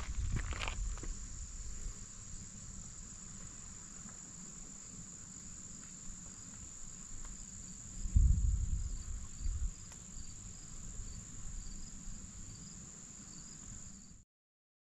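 Insects trilling in one steady, unbroken high note, with a few footsteps at the start and a low rumble about 8 seconds in. The sound cuts off abruptly just before the end.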